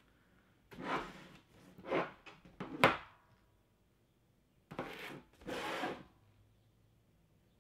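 Cardboard and plastic packaging being handled and slid across a tabletop: two clusters of short rubbing scrapes, with one sharp knock in the first cluster.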